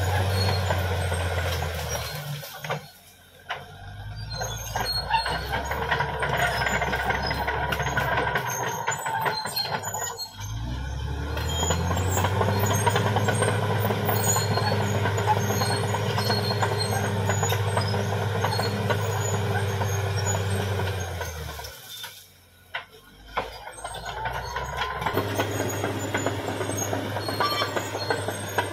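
Caterpillar D6R XL bulldozer's diesel engine running steadily while working. The sound drops away briefly twice, about three seconds in and again about twenty-two seconds in, then comes back at a slightly different pitch.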